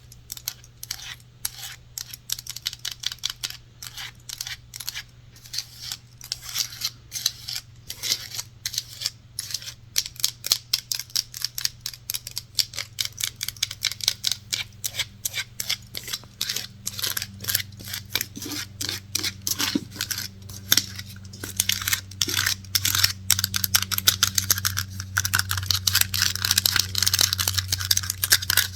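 Rapid, continuous tapping and scratching on hard objects, many quick clicks a second that grow denser and louder over the second half, over a low steady hum.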